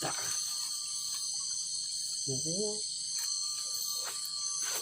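Night insect chorus of crickets, a dense steady high-pitched buzz. Over it, a faint long even whistle sounds twice, at the start and again from about three seconds in; this is the call the angler takes for a bird.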